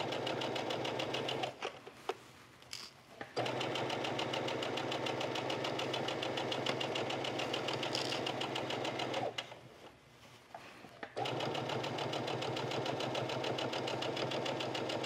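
Brother electric sewing machine stitching at a steady speed, stopping twice for a second or two and then running on.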